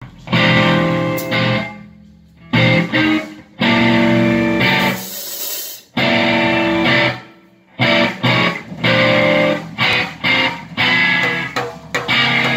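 Electric guitar playing through an amplifier: ringing chords broken by short pauses, then a run of short, choppy chords in the second half.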